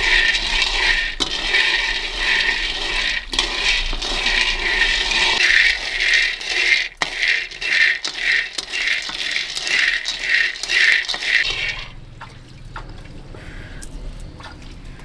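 Peanuts being stirred in a hot pan as they roast, a scraping rattle with a rhythmic swish about twice a second. It stops suddenly about twelve seconds in, leaving a quieter low hum.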